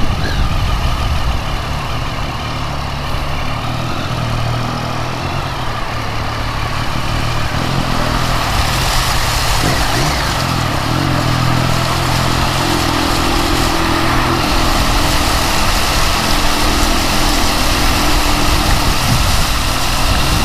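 Triumph Street Triple's inline-three engine running while the motorcycle is ridden, with air rushing over the microphone; the rush grows louder about eight seconds in.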